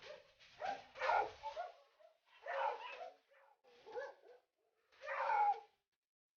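A Doberman dog giving a series of about four short calls, roughly one every second or so.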